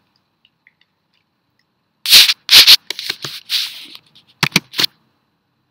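Paper rustling and crinkling as sheets of printed image and carbon transfer paper are handled, in several loud bursts over about three seconds starting two seconds in, ending in a few short sharp clicks.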